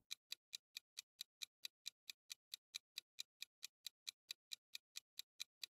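Clock-tick sound effect ticking at a fast, even pace, about four to five light, high-pitched ticks a second, faint: a countdown timer running while the puzzle is on screen.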